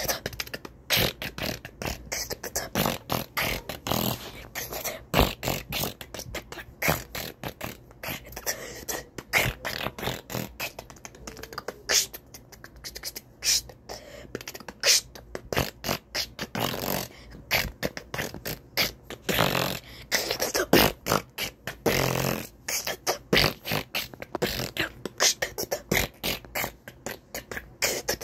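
A boy beatboxing: a quick, continuous run of mouth-made clicks and pops, with hissing sounds between them.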